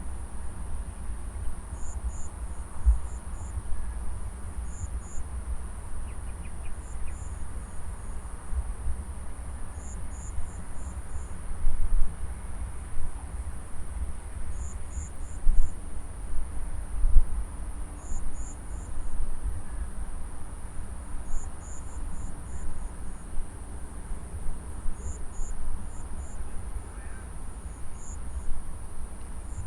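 Insects, crickets among them, calling in a harvested rice paddy: a steady very high trill with short groups of chirps every second or two, over an uneven low rumble.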